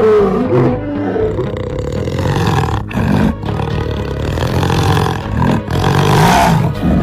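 Lions roaring and growling in a run of short cuts, with the sound dropping out abruptly about three seconds in, again shortly after, and once more near six seconds.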